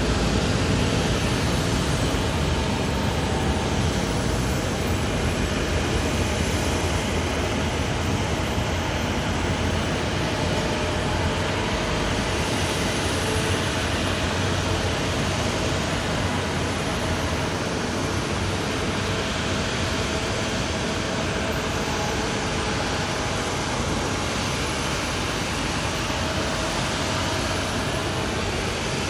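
Jet airliner noise at the airport: a steady rumble and roar that slowly fades.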